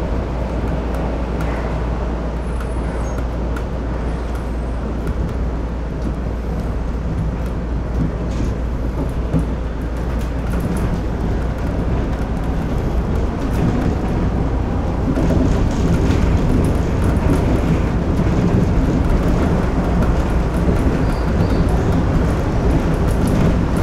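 Shonan Monorail suspended monorail car running along its overhead track beam, heard from the driver's cab: a steady low rumble of its rubber-tyred running gear, growing a little louder in the second half.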